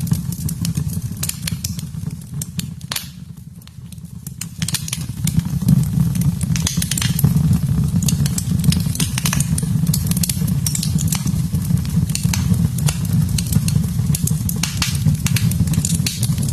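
Logs burning in a fireplace: a steady low rumble of flame with frequent sharp crackles and pops from the wood, briefly quieter about three seconds in.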